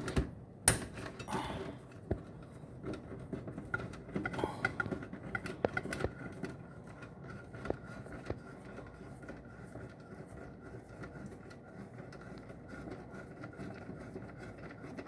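Screwdriver turning terminal screws on a PTAC air conditioner's power cord connections: small metal clicks, taps and scrapes. One sharper knock comes just under a second in, and the clicking is busiest in the first half before thinning out.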